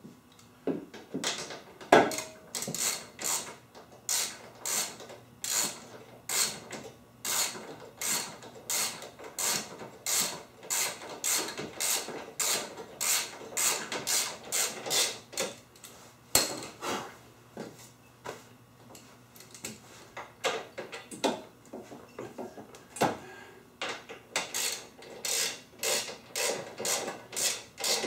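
Hand ratchet wrench driving bolts, its pawl clicking in short bursts about twice a second with each back-swing, thinning out for a few seconds past the middle.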